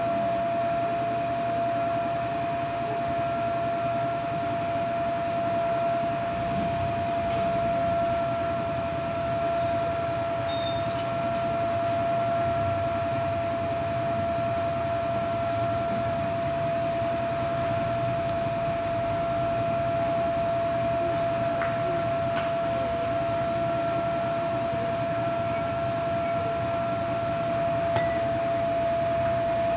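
A steady machine hum: one constant high tone held without change over an even low rumble, with a few faint clicks.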